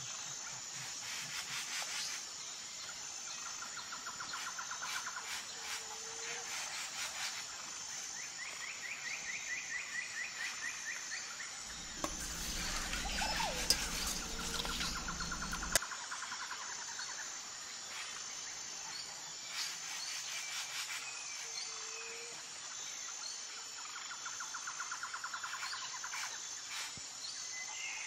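Birds singing short repeated trills and chirps over a steady pulsing insect buzz. About twelve seconds in comes a few seconds of louder noise with a couple of sharp knocks.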